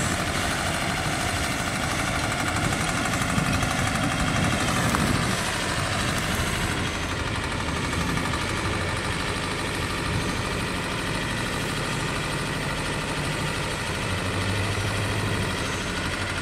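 A vehicle engine idling and running steadily.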